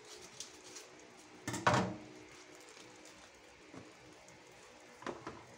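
Butter frying faintly with light ticking under the glass lid of a covered pot of popcorn kernels heating on the stove, before the popping starts. A loud knock with a short ring comes about a second and a half in, and a softer one near the end.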